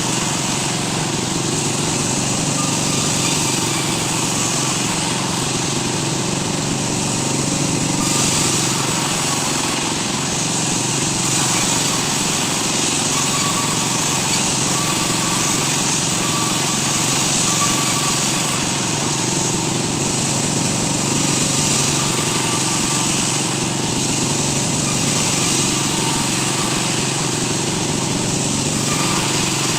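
Woodworking power tool running steadily and loudly, with a harsh whir that holds without a break.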